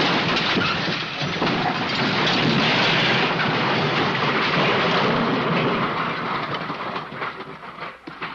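A long crash sound effect: a dense clattering, rumbling crash that starts abruptly, runs for about seven seconds, then thins into scattered rattles as it dies away near the end.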